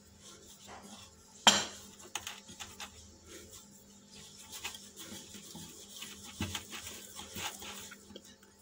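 Hands kneading a stiff dough in a glass mixing bowl, the bowl knocking and clinking as it is worked. One sharp clink about one and a half seconds in, then many lighter irregular knocks and taps.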